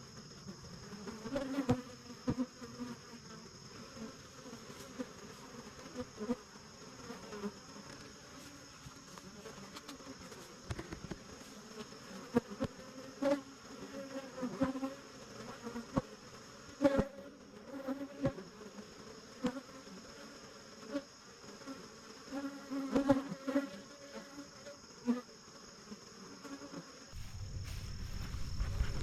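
Honey bees buzzing around the hive, single bees swelling louder and fading as they fly close past, from a swarm the keeper calls hot and angry. A steady high whine sits behind, a few light knocks come through, and a low rumble builds near the end.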